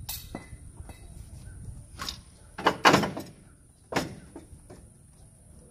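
Metal tow hook being slid into its mount behind a pickup's front bumper, clunking against the bumper and frame: several sharp knocks, the loudest about three seconds in.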